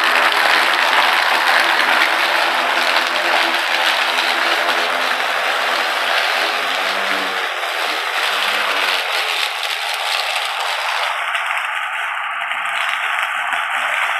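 Ryobi 40V brushless cordless lawn mower with a 20-inch blade running while it mows, a steady motor hum under a loud, even rushing crackle of grass and leaves being cut and blown into the collection bag. The hum thins out about halfway through while the rushing goes on.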